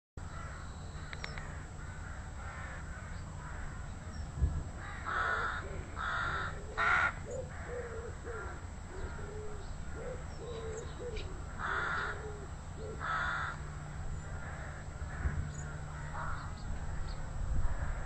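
Rooks cawing: five harsh caws, three in quick succession about five seconds in and two more about seven seconds later.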